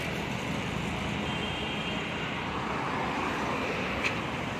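Steady road traffic noise on a busy road, passing cars and motorbikes, with a short sharp click about four seconds in.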